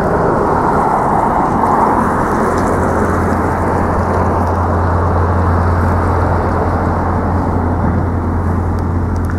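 Steady street traffic noise: cars running along the road, with a constant low rumble throughout.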